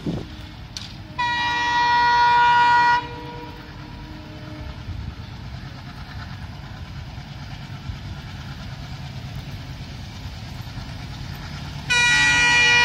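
Horn of an approaching Indian Railways locomotive: a long blast about a second in lasting nearly two seconds, and a second long blast starting near the end, with a steady low rumble of the oncoming train between them.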